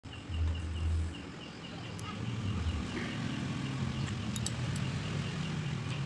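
Low hum with a few light metallic clicks as steel transformer laminations are handled, over a high ticking about four times a second in the background.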